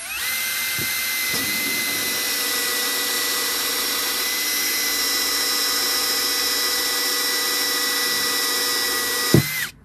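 Power drill with the kit's hole-cutting bit boring a parking-sensor hole in the car's rear bumper. It spins up at the start and runs steadily with a high whine, then there is a brief knock and it stops near the end.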